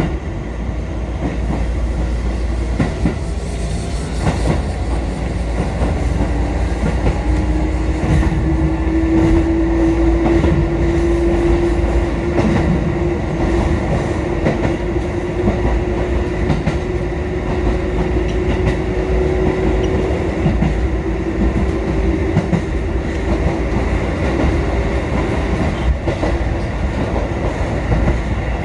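Four-car electric train running on jointed track: wheels clicking over rail joints over a steady low rumble, with a motor whine that rises slowly in pitch through the middle.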